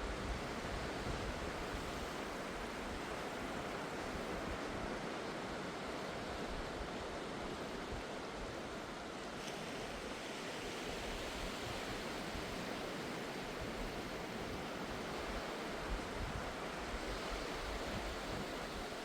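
Steady wash of surf breaking on a beach.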